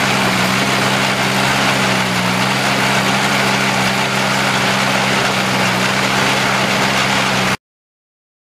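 Feucht OB Future II fallen-fruit harvester running as it loads apples into its bin: a steady low hum of machinery under dense, even noise. It cuts off suddenly about a second before the end.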